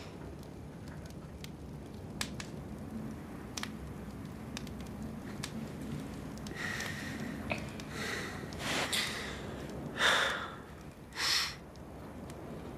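A person breathing: several short, audible breaths in the second half, over quiet room tone with a few small clicks.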